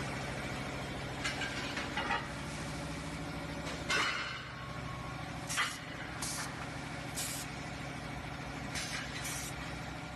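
Ingot-stacking industrial robot with a pneumatic gripper at work: a steady machine hum, a few metal clanks as alloy ingots are gripped and set down, the loudest about four seconds in, and several short sharp hisses of air from the gripper's cylinders in the second half.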